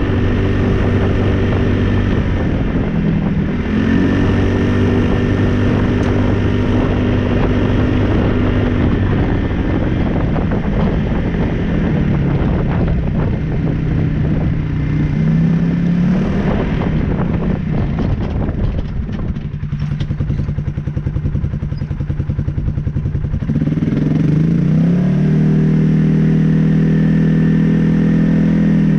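2015 Polaris Ace 570 SP's single-cylinder engine running under way, revs rising and falling. Midway it drops to lower revs with a spell of rattling, then revs climb and hold high near the end.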